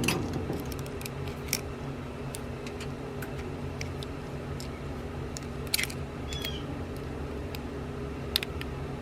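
A few light, sharp clicks and taps of small parts being handled while a heater control cable is worked onto the heater control under a truck dash, over a steady low hum.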